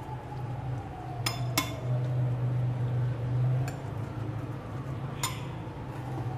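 Metal teaspoon clinking against a small glass bowl while mashing milk-soaked bread: two sharp clinks about a second in and another near the end, over a steady low hum.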